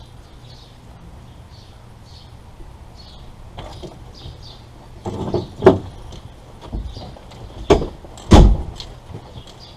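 A few sharp metallic clunks and knocks from tools and parts being handled at the rear differential, the loudest four coming between about five and eight and a half seconds in.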